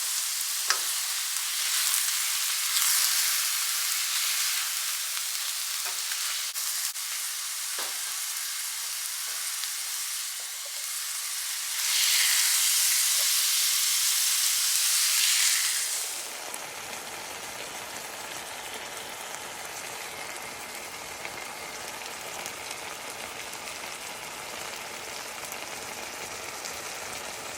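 Food frying in a pan: a steady sizzle that swells louder for a few seconds near the middle, then changes to a quieter, duller hiss for the rest.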